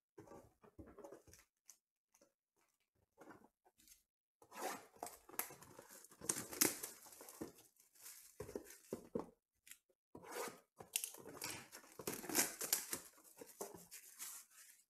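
Clear plastic shrink wrap being torn and crinkled off a trading-card box, in two long spells of crackling about four and ten seconds in, after a few light handling noises.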